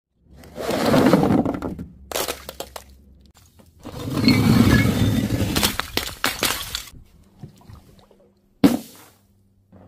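Crunching and shattering: raw eggs crushed under cardboard egg cartons about half a second in, then glass bottles breaking and shattering from about four seconds to seven seconds. A single short sharp pop near the end.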